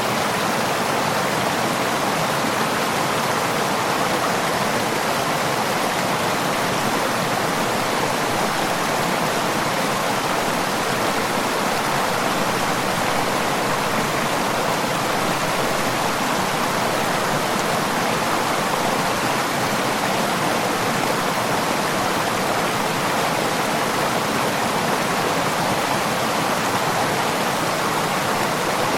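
Running water: a steady, even rush that does not change.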